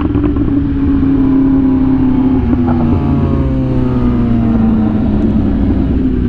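Superbike engine running at a steady, moderate speed, its pitch slowly falling over several seconds.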